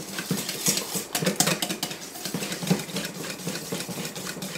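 Wire whisk beating a thin yeast-and-flour batter by hand in a stainless steel mixing bowl: quick, irregular scraping and clinking of metal wires against the bowl.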